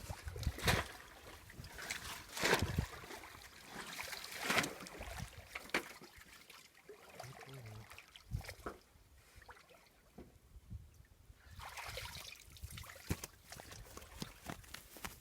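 Shallow water sloshing and splashing: a run of separate splashes through the first six seconds, a quieter stretch, then more sloshing in the last few seconds.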